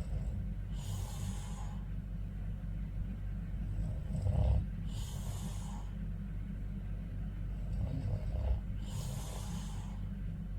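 A sleeping man snoring: short low snores alternate with longer hissing breaths, one breath cycle about every four seconds, over a steady low hum.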